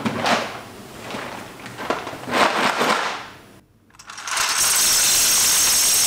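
Plastic Lego bricks poured out onto a lab bench: a dense, steady clatter starting about four seconds in. Two brief softer noises come before it.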